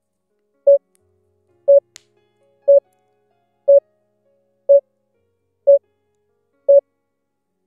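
Quiz countdown-timer sound effect: a short, single-pitched beep once a second, seven beeps in a row, marking the seconds left to answer.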